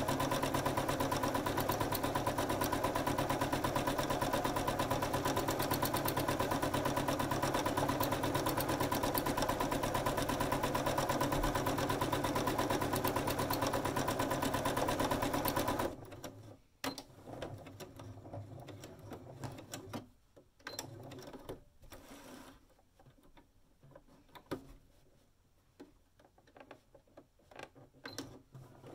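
Domestic electric sewing machine running steadily at speed, stitching through the fabric panel and wadding with a fast even rattle and a steady motor hum. It stops abruptly a little over halfway through, leaving faint irregular clicks and rustling.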